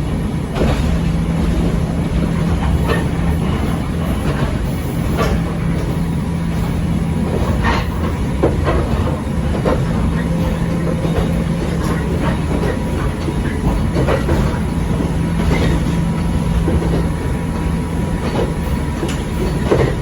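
Echizen Railway 5001-series railcar running along the line, a steady rumble with a low hum that comes and goes. Scattered clicks of the wheels over rail joints sound throughout.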